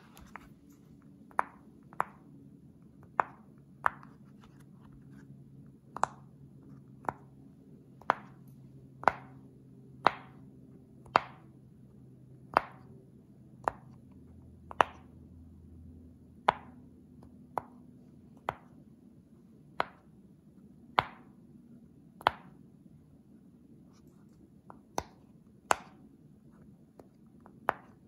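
Silicone pop-it fidget toy bubbles being pressed one at a time, each giving a short, sharp pop. The pops come about once a second at an uneven pace, some louder than others, with a couple of brief pauses.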